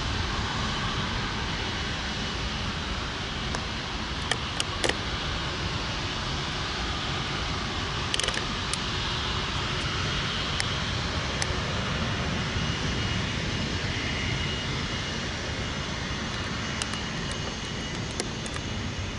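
Jet airliner engines heard as a steady rushing roar, with a faint high whine rising in from about ten seconds in and a few light clicks.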